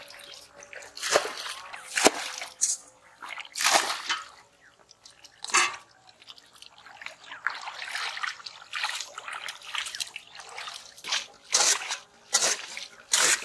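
Hands splashing and squelching in shallow muddy pond water, in irregular splashes a second or two apart, more frequent and louder toward the end.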